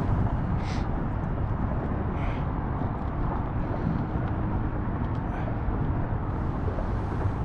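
Wind buffeting an action-camera microphone on an open kayak, a steady low rumble. Two short splashes of water against the hull come in the first few seconds.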